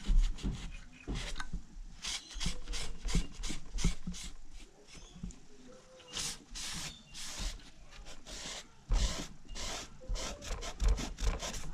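Short rubbing, scraping strokes in quick succession, about two a second, from hand work on a Technics SL-1200MK2 turntable as it is taken apart and cleaned, after a knock right at the start.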